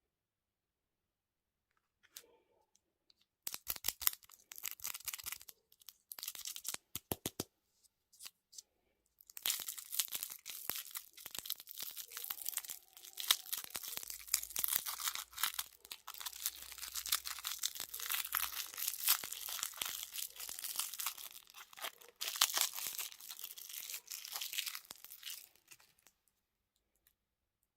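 Packaging being torn open and crinkled: a run of sharp crackles, then about fifteen seconds of dense continuous crinkling that stops near the end.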